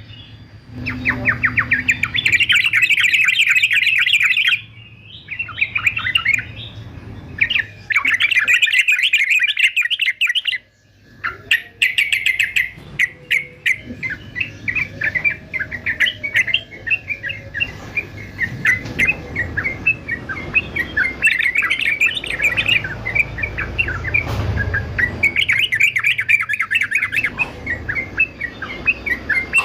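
Male yellow-vented bulbul singing a fast, chattering song of quick notes in long runs, broken by short pauses about four and eleven seconds in.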